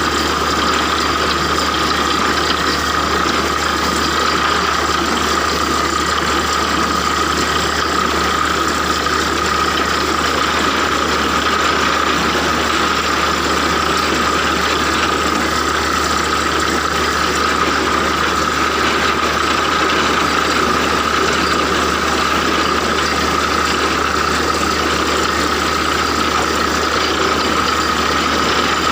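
A heavy engine running steadily at a constant speed, with a steady high whine over its noise and no change in pitch or loudness.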